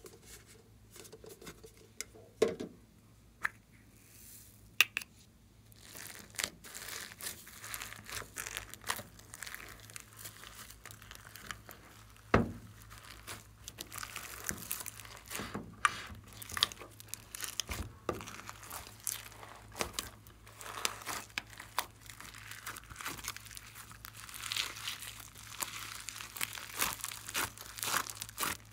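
Hands squishing and kneading slime mixed with foam beads, glitter and clay in a glass dish: a dense wet crackling and crunching of the beads, starting about six seconds in after a few sharp clicks.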